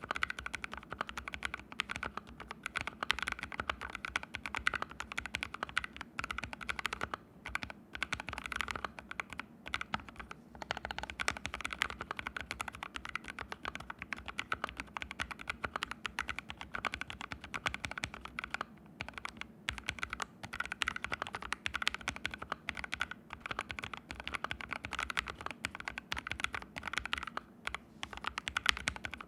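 Fast, continuous typing on an ABKO AR61 mechanical keyboard with fully lubed Haimu Sea Salt switches, a dense stream of key clicks with a few brief pauses. The keyboard sits directly on a bare floor with no mat under it.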